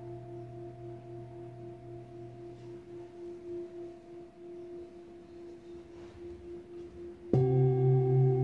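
Antique Tibetan singing bowl ringing and slowly fading, its tones wavering gently. About seven seconds in, another bowl is struck with a padded mallet and rings out much louder, with several tones at once.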